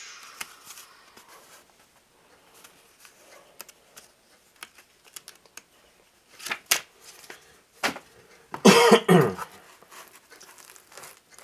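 Small clicks and rustling of packaging being handled, with a loud cough a little after two-thirds of the way through.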